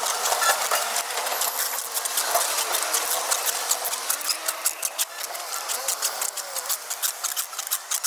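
Clear plastic tape being pulled off its roll and wound tightly around a cable splice: a continuous crackling rasp made of many rapid clicks.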